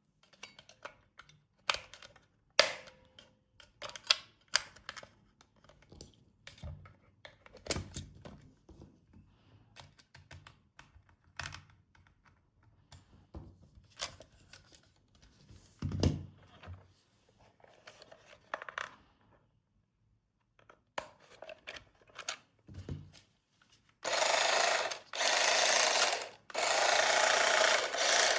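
Clicks, taps and rustles of plastic and packaging being handled, with three loud harsh rasping sounds of about a second each near the end.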